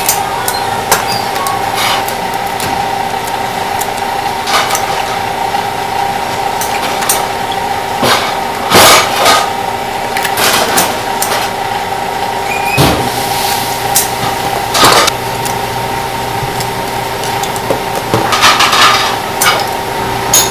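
Kitchen clatter: scattered clinks and knocks of utensils and dishes, with a few louder knocks in the middle and a cluster near the end, over a steady mechanical hum.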